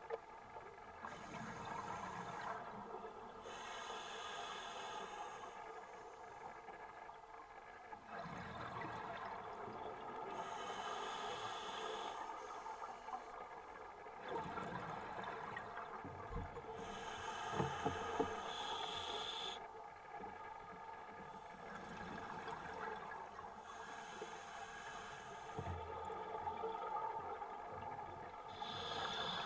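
Scuba diver breathing through a regulator underwater: a hiss on each inhalation alternating with the bubbling rush of exhaled air, in a slow cycle every few seconds.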